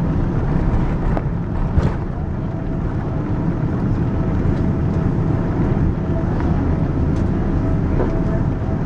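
Cabin noise of a Boeing 777-200ER rolling out on the runway after touchdown, spoilers up: a steady rumble of the wheels on the runway and the engines, with a couple of short knocks in the first two seconds.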